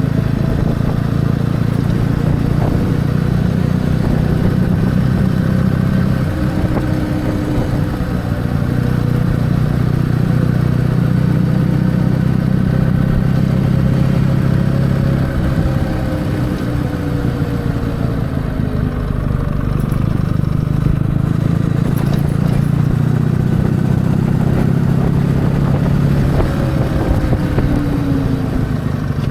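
Kawasaki W650 motorcycle's air-cooled parallel-twin engine running steadily under way, the revs drifting gently up and down and falling away near the end.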